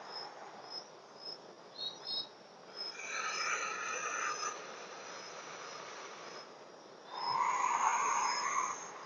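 Insects chirping: a short high chirp repeats about every half second, with two louder stretches of about a second and a half, around three and seven seconds in.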